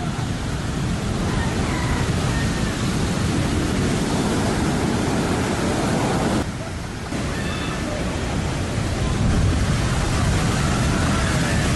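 Heavy surf: big waves breaking over a rock ledge and whitewater rushing up a beach, a loud, continuous wash of water noise. The sound dips briefly about six and a half seconds in, then carries on as loud as before.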